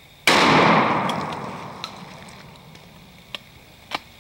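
A single close-up shotgun blast about a quarter of a second in, its echo dying away over a second or so, followed by two faint clicks near the end.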